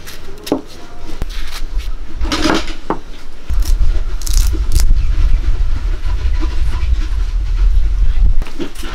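A kitchen knife cutting green chillies held in the hand, a few short crisp clicks in the first three seconds. From about three and a half seconds in, a heavy deep rumble takes over and is the loudest sound, stopping shortly before the end.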